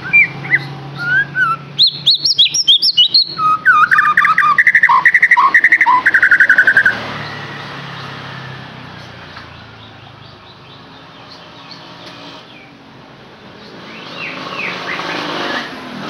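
White-rumped shama (murai batu) singing loud, varied whistled phrases with fast trills for about seven seconds. It then falls silent under a low background hum, and a few fainter calls come near the end.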